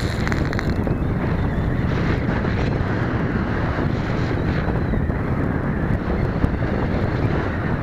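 Wind buffeting the microphone: a steady rumbling noise with no engine tone.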